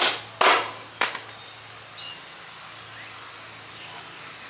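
Hammer blows driving a nail into a hardwood plank: three sharp strikes in the first second, then a pause with only a faint steady hum.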